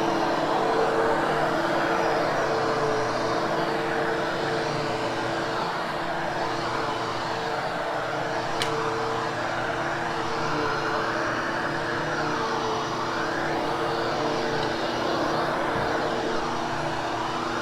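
Hoover HushTone vacuum cleaner running steadily as it is pushed over carpet: a constant motor hum and whine with a rushing of air that swells and eases a little with the strokes.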